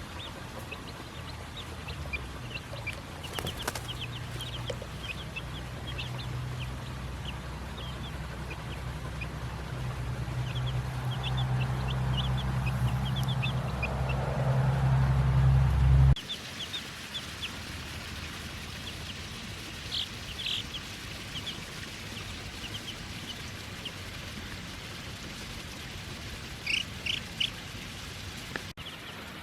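Chickens clucking and chirping in short calls throughout. Under them, a low steady motor hum grows louder over the first half and cuts off abruptly just past the middle.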